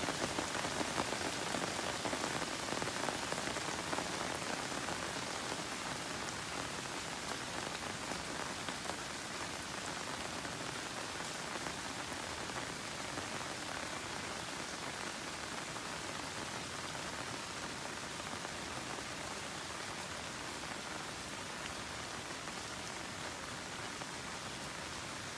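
Steady rain falling on leafy garden plants: an even hiss of many drops that eases gradually.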